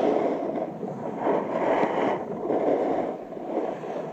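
Snowboard sliding and scraping over packed snow, a continuous rasping rush that swells and eases in a few surges.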